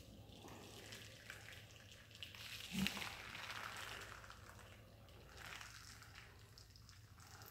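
Faint hiss of liquid acrylic paint running off the edge of a tilted board and dripping onto plastic sheeting, swelling about three seconds in with a short soft bump.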